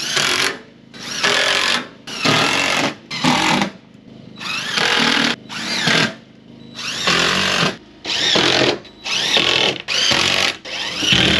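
Cordless drill driving screws through OSB sheathing into wall framing, in about ten short runs of half a second to a second each, its motor pitch rising as each run spins up.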